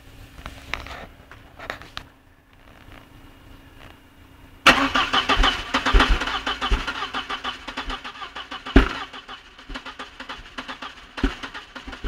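A few clicks, then a Volkswagen Passat's engine cranks on the starter for about seven seconds with fast, even pulses, never catching, and stops abruptly: the car will not start.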